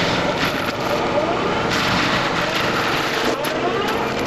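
Takeuchi tracked machine running an FAE forestry mulcher head while grinding brush and tree debris, its pitch rising and falling with the load, with a few sharp knocks.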